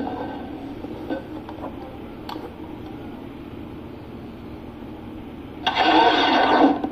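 Steady low hiss from a television's sound with a few faint clicks, then, about five and a half seconds in, roughly a second of a loud pitched sound from the television with several tones at once.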